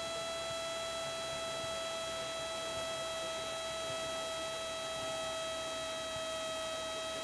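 Steady electrical whine with a ladder of overtones over a faint hiss, carried in the Cessna 172's intercom and radio audio feed.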